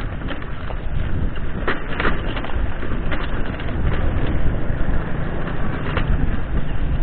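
Mountain bike rolling over a rough, stony dirt track: tyres crunching on loose rocks and the bike rattling and clacking over the bumps, with a few sharper knocks about two seconds in. Wind rushes over the microphone throughout.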